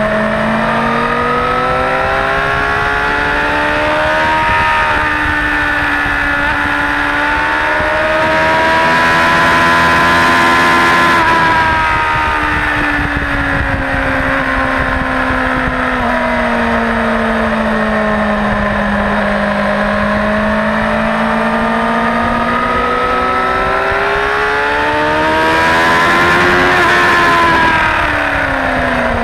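Suzuki GSX-R600 K4's inline-four engine heard from on board at speed on track, its pitch climbing steadily under throttle, easing off, climbing again and dropping sharply near the end. Wind rush grows loudest at the two highest-revving stretches.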